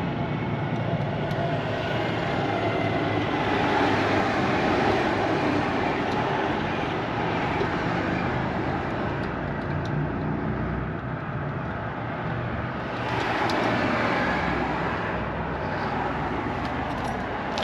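Fire engine's diesel engine idling steadily, the noise swelling a little twice.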